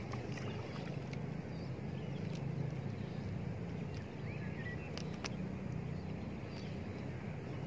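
Steady low rumble, with two faint sharp clicks about five seconds in.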